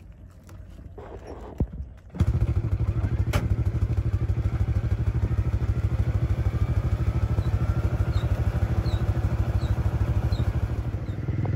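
A small boat's engine catches about two seconds in and then runs steadily with a fast, even putter. Before it starts there are faint knocks and clatter.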